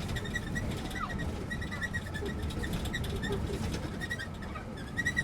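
Old bus squeaking: short, high chirp-like squeaks repeat unevenly over a steady low rumble.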